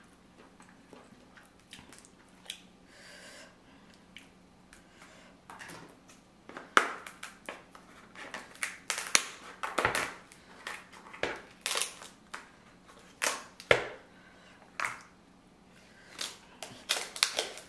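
King crab leg shell being cracked and snapped apart by hand: faint clicks and handling at first, then from about six seconds in a series of sharp, crisp cracks, some coming in quick clusters.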